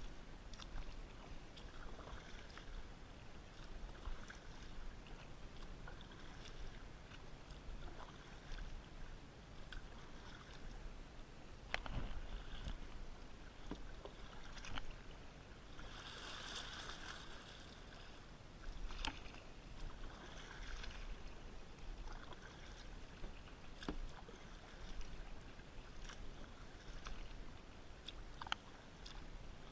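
Kayak paddle strokes in calm water: soft swishes and drips every couple of seconds, with a few sharp knocks and a longer splash about halfway through.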